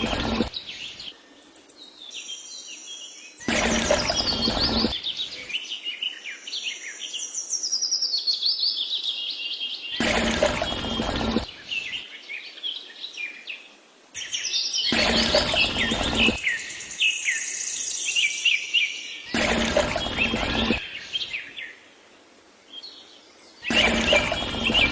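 Birds chirping and singing throughout. About every five seconds a louder rush of noise lasting a second or so comes in over them, six times in all.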